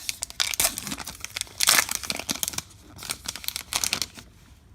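A baseball card pack wrapper being torn open and crinkled by hand, a run of crackling with one loud rip a little under two seconds in, dying down near the end.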